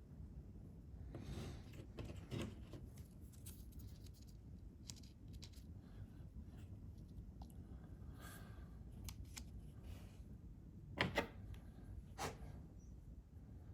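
Small metal parts and hand tools handled during reassembly: scattered light clicks, taps and rustles, the loudest a sharp double click about eleven seconds in and another click a second later.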